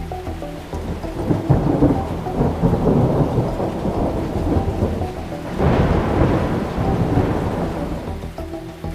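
Thunder rumbling over heavy rain, with a louder clap of thunder about five and a half seconds in that rolls away toward the end. Background music plays faintly underneath.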